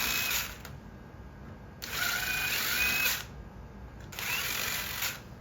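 Power drill running in short bursts of about a second each, its whine rising as each burst starts. It is widening screw holes in wood slightly so the screws will fit.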